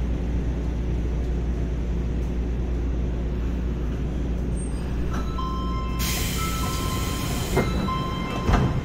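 Subway train pulling into a station and braking to a stop, heard from the driver's cab. A steady low running rumble is joined about five seconds in by several steady electric whining tones that shift pitch in steps. Around six seconds in comes a burst of air hiss, then a couple of knocks near the end as the train halts.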